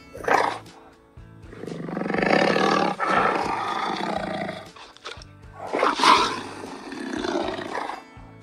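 Recorded tiger roar sound of Google's 3D augmented-reality tiger: a short burst just after the start, then two long roars of a few seconds each, over background music.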